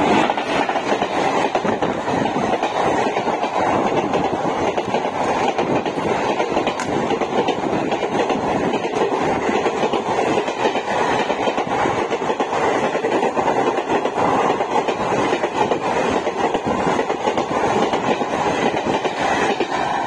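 An express train hauled by a WAP-4 electric locomotive passing close at speed. There is a loud peak as the locomotive goes by at the start, then a steady rush of coach wheels on the rails with fast clickety-clack over the rail joints.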